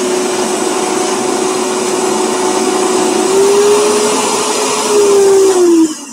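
High-powered countertop blender running steadily as it blends frozen bananas, cocoa powder and water into a thick mix. Its motor pitch rises about halfway through, then falls and cuts out near the end as the blender is stopped and spins down.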